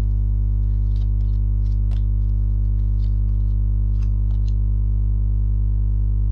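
A steady low hum made of several even tones stacked one above another, unchanging throughout, with faint light clicks and rustles scattered over it.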